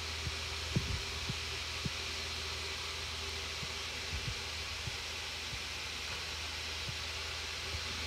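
Steady background hiss with a low hum, dotted with soft, brief low taps every second or so.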